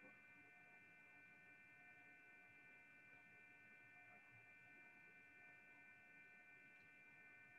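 Near silence: a faint, steady electrical hum with a few high, unchanging whine tones.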